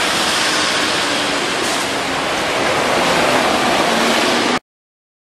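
Steady, loud rushing noise of road traffic passing close by on a busy city street. It cuts off abruptly to dead silence near the end.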